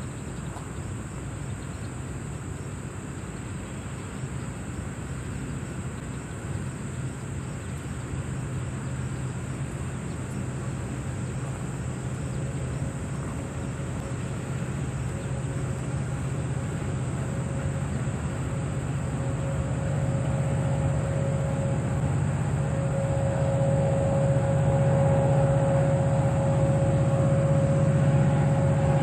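Union Pacific diesel locomotives approaching, their low engine hum growing steadily louder, with a steady whine joining about halfway through. Insects trill steadily in the background.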